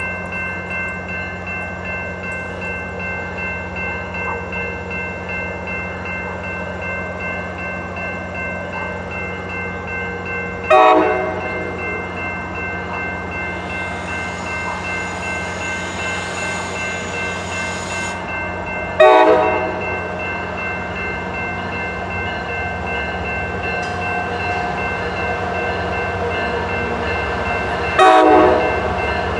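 Railroad crossing bell ringing steadily over the low rumble of an approaching diesel locomotive. The locomotive sounds three short horn blasts several seconds apart: about ten seconds in, near the middle, and near the end.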